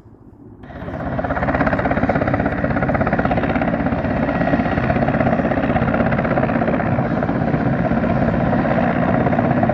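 Low-flying Mi-8-type twin-turbine helicopter, loud and steady, its rotor beat and engine noise cutting in abruptly about half a second in.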